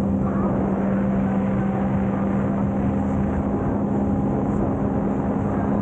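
Sea-Doo personal watercraft running at a steady cruising speed: a constant engine drone with one unchanging pitch, over a haze of wind and water noise.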